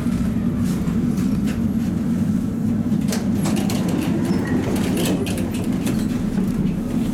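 Tatra T3 tram running on the rails: a steady low rumble from the wheels and running gear, with scattered short clicks and faint squeaks, most of them in the middle.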